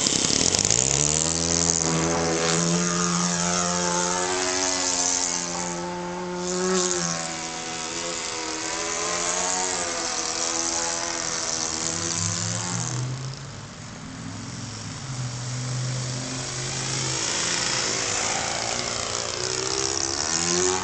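RC model airplane's motor and propeller running in flight, the pitch rising and falling with throttle changes. About 13 seconds in it drops lower and quieter, then builds back up.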